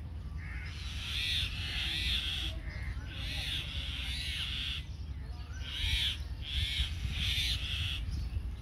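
Birds giving harsh, repeated calls in three bursts of several calls each, over a steady low rumble of wind on the microphone.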